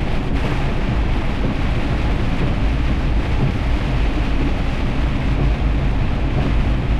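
Semi truck driving through heavy rain: a steady, loud low rumble of engine and road noise mixed with rain and wind noise.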